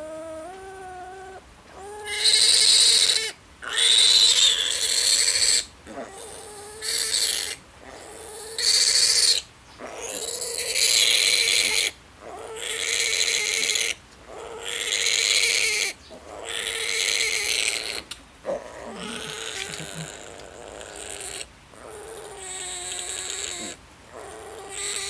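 Male piglet squealing in distress while being held and castrated with a blade: about ten long, loud squeals with short breaks between them, getting weaker toward the end.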